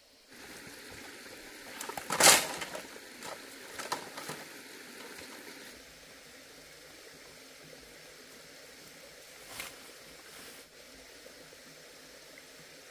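Water trickling steadily, with a cluster of sharp knocks and clatters about two to four seconds in and one more near ten seconds.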